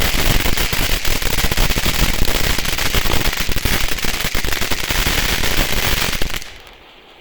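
Firework crackling in a dense, rapid stream of small pops, loud and unbroken for about six seconds, then stopping abruptly.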